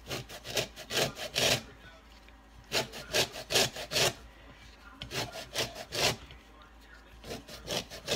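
Lemon peel being rubbed back and forth on a hand grater to zest it: runs of quick rasping strokes, about four a second, with short pauses between runs.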